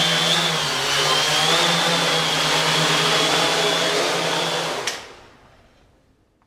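Custom quadcopter's electric motors and propellers whirring with a steady high whine and low hum while it hovers. About five seconds in the whir stops with a single sharp click, and the sound dies away to near silence.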